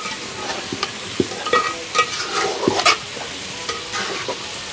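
Metal ladle stirring and scraping food in a large cooking pot, with irregular clinks that ring briefly against the metal, over a steady hiss of food cooking in the pot.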